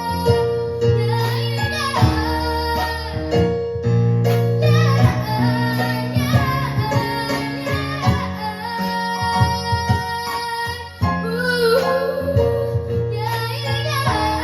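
Live band music: a child singing over keyboard and drums.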